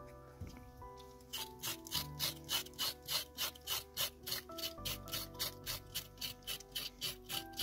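A kitchen knife blade scraping the skin off a large raw carrot in quick, even strokes, about four a second, starting about a second and a half in. Soft background music plays underneath.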